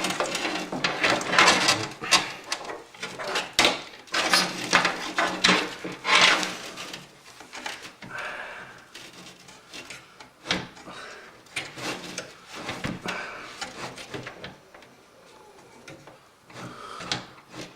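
Clicks, knocks and scrapes from hands working on a computer case and power supply while fitting the power supply's mounting screws. The clattering is dense for the first several seconds, then thins to scattered clicks.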